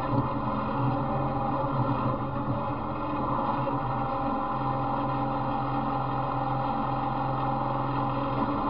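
Small engine of an off-road riding lawn mower running steadily at an even speed, giving a constant hum with several fixed pitches.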